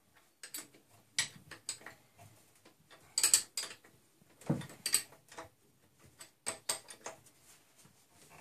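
Metal clinks and knocks of a wrench tightening the headstock's hold-down bolts on a small metal lathe, coming as irregular sharp clicks with a few louder strikes.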